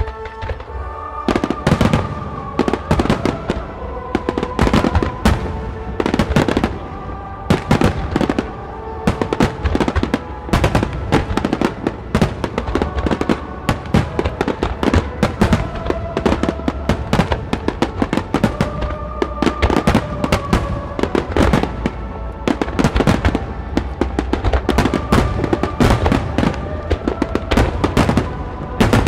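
Aerial fireworks bursting in rapid, repeated bangs from about a second in, with music playing throughout.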